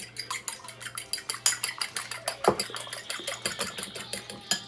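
Utensil clinking rapidly and evenly against a mixing bowl, about seven strikes a second, as ingredients are beaten together, with one heavier knock about halfway through.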